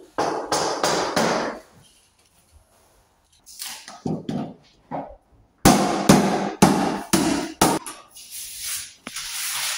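Hammer strokes from carpet fitting, in several quick runs with short pauses between them; the loudest run comes about six to eight seconds in.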